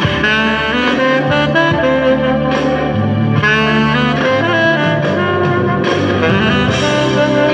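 Selmer saxophone with a Meyer 7 mouthpiece and a synthetic reed playing a slow, romantic melody with vibrato over a backing track with bass, close-miked with no editing.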